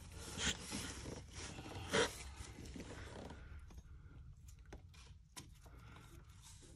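Rubber serpentine belt and gloved hands rubbing and scraping against the engine's pulleys as a new belt is worked around them, with a sharper knock about two seconds in. It goes quieter after about three and a half seconds, leaving a few light clicks.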